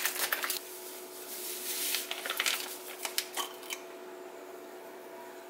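Dry seasoning shaken and tapped out of a small plastic container into a soup pot: a few crinkles and clicks at first, then rustling shakes and light taps that stop about four seconds in. A faint steady hum sits underneath.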